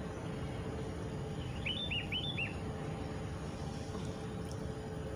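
A songbird calling: one quick phrase of four short, downward-sweeping chirps about a second and a half in. Under it is a steady, low outdoor background noise.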